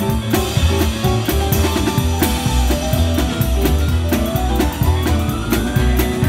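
Live rock band playing: a drum kit struck with sticks keeps a steady beat on cymbals, snare and kick drum, under keyboard and guitar parts with a heavy bass line.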